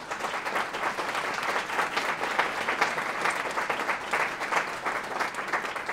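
Audience applause: a room full of people clapping steadily.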